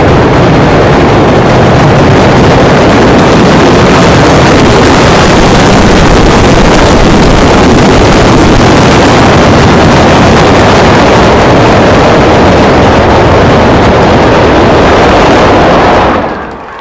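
A dense ground barrage of firecrackers going off in rapid succession, so many and so close that the bangs merge into one continuous din that overloads the microphone, stopping suddenly near the end.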